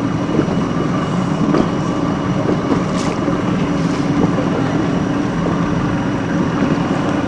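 Boat engine running steadily: a loud, even drone, with a brief click about three seconds in.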